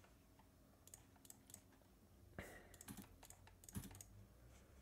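Near silence with a scatter of faint clicks from a computer mouse and keyboard, several in quick succession from about a second in.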